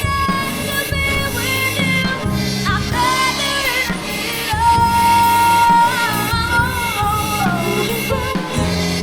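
Pop ballad with a female singer, her melody holding one long high note about halfway through, over a full band backing with a drum kit and cymbals played along.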